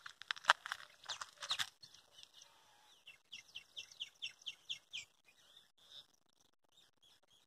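Small birds chirping: a cluster of loud, sharp chirps in the first two seconds, then a quicker run of short, high repeated notes, about five a second, before fading to scattered calls.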